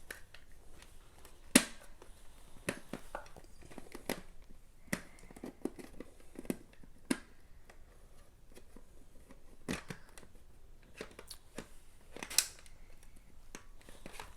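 Plastic clicks and knocks of a toy puzzle box being handled, its parts pushed and twisted to lock them into place, with a sharp clack about one and a half seconds in and another near the end.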